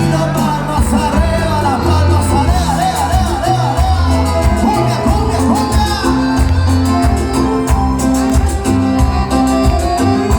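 Live band playing Latin dance music with a steady bass and drum beat, with singing over it.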